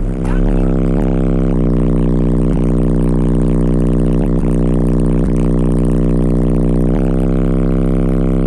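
A Protech Competition 2000 W 12-inch car subwoofer, driven by a Taramps MD 3000.1 amplifier, playing a long, steady, very deep bass drone from a rap track. A stack of buzzing overtones rides on the drone, with short ticks of the beat now and then.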